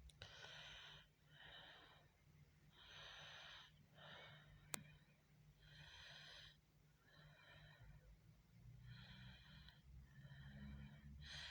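Near silence with faint breathing close to the microphone, a soft puff about every second and a half, and one sharp click a little under five seconds in.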